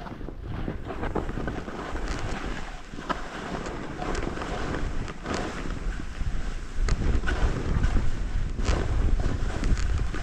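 Wind buffeting the microphone, with a low rumble that grows heavier about seven seconds in. Short scraping or crunching noises are scattered through it.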